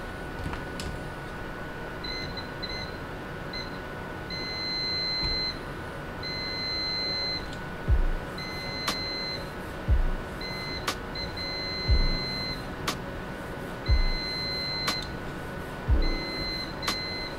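Digital multimeter continuity beeper sounding as the probes touch the laptop motherboard's PCH power lines: a high steady beep coming and going from about two seconds in, some short and some held for a second or more, the sign of a line shorted to ground, a failed PCH chipset. From about eight seconds in, a low thump about every two seconds, each followed by a sharp click about a second later.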